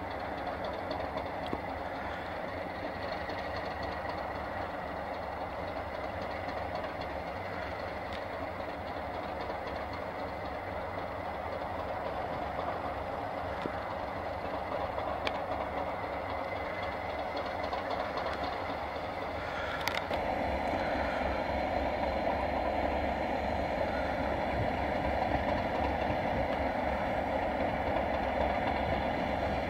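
Two Class 37 diesel locomotives idling, their English Electric V12 engines running steadily. About two-thirds of the way through there is a click, and the engine sound gets a little louder and fuller.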